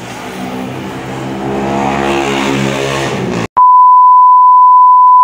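A vehicle engine drawing closer and growing louder, cut off about three and a half seconds in by a loud, steady single-pitch beep: the 1 kHz test tone of a TV colour-bar screen.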